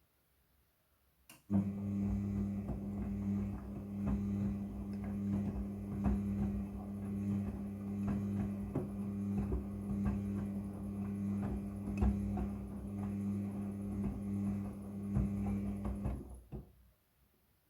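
Front-loading washing machine drum turning the wash load: a steady motor hum with frequent knocks from the tumbling load, starting about a second and a half in and stopping near the end.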